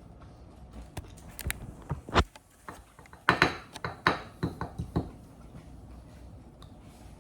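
Close-up eating sounds: a few sharp clicks of utensils against a bowl, then a cluster of louder mouth noises and clinks from about three to five seconds in.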